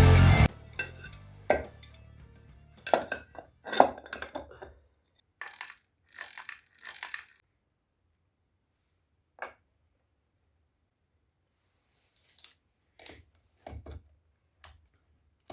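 Music cuts off within the first half second, then scattered clinks, light knocks and short scrapes of small metal parts being handled, with silent gaps between them.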